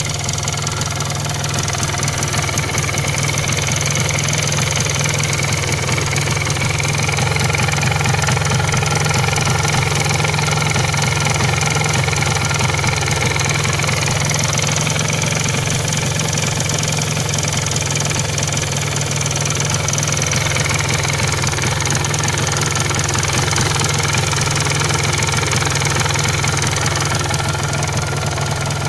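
MZ ETZ 250 single-cylinder two-stroke motorcycle engine running steadily with a clattering, rattling noise from the engine.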